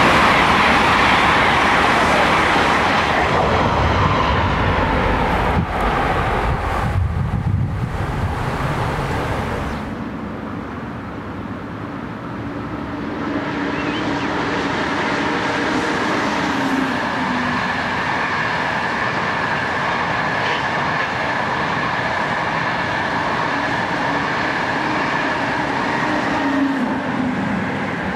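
Italian high-speed electric train running past at speed: a loud rush with deep rumble that cuts off abruptly about ten seconds in, followed by a steadier running sound with a steady high whine.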